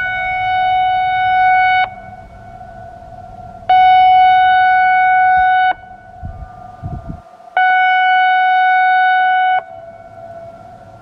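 I-Force electronic outdoor warning siren sounding three steady, single-pitch tone blasts, each about two seconds long with a gap of about two seconds between them. A fainter tone at the same pitch lingers between the blasts.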